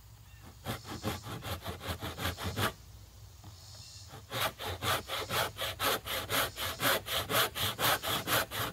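Crosscut carcass saw, a fine-toothed back saw, cutting across a thin wooden bridge-plate blank with quick, even rasping strokes, starting the kerf in a knife-scored line. The strokes begin about a second in, stop briefly around three seconds, then resume louder and steady.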